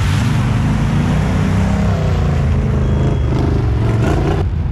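ATV engine revving hard, its pitch rising and falling, as it churns through a mud and water pit. Near the end the sound switches abruptly to a duller engine drone.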